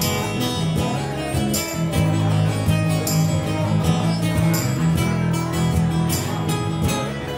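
Live band playing an instrumental passage: strummed guitars over a bass line and foot-played percussion, with a bright splashy hit about every second and a half.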